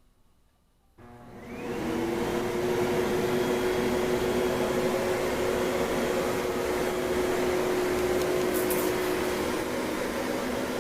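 Samsung Motion Sync vacuum cleaner switched on about a second in, its motor spinning up with a short rising whine and then running steadily.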